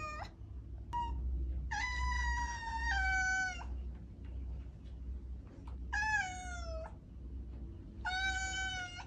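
Domestic cat meowing again and again: the tail of one meow at the start, a brief chirp about a second in, a long drawn-out meow that steps down in pitch partway, a shorter meow sliding down in pitch in the middle, and another meow near the end. A low hum runs underneath.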